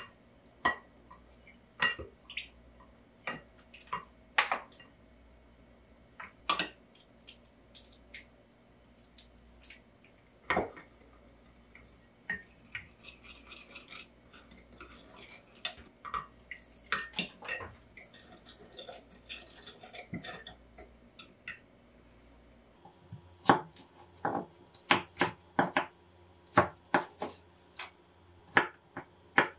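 A wooden spoon stirring sauce in a glass measuring cup, knocking and scraping against the glass. About three-quarters of the way through, a kitchen knife starts slicing garlic cloves on a wooden cutting board: a quick run of sharp knocks on the wood.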